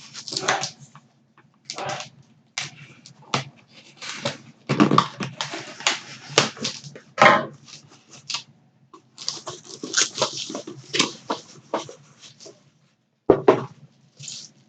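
A cardboard mystery box and its packing being handled and opened by hand: a run of irregular short rustling and scraping noises with brief pauses, and a sharper knock about 13 seconds in.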